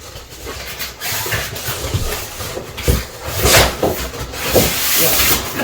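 Packaging being handled: irregular rustling and scraping, with several louder swishes in the second half.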